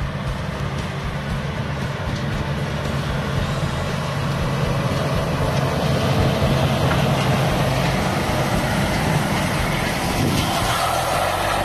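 Diesel engine of a large four-wheel-drive tractor working under load as it pulls a heavy harrow through stubble, with the rush of the harrow and tyres over the ground. It grows louder as it comes close, loudest about halfway through.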